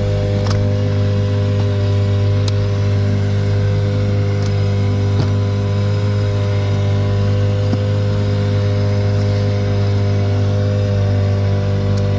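A boat's outboard motor running steadily at an even pitch, with a few light clicks on top.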